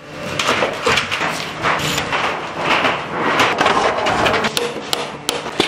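Sheet-metal workshop din: metal clattering and knocking over the steady hum of running machinery.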